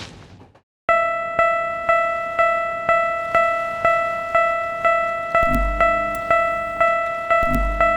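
Railroad crossing alarm bell, an electronic ding struck evenly about twice a second, starting about a second in after a short silence. From a little past halfway, two deep low booms join in.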